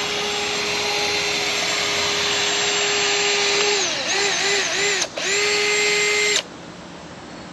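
Cordless drill running at a steady high whine, drilling out pop rivets. Its pitch sags and recovers several times as the bit bites. It stops briefly, runs up to full speed again, and stops about six seconds in.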